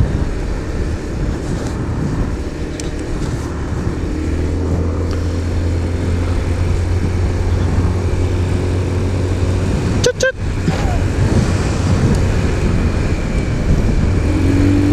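Rusi Venus 125 scooter's engine running under throttle while riding, a steady low hum under heavy wind rush on the microphone, with one brief dropout about ten seconds in. The rider says the engine still misfires and hiccups.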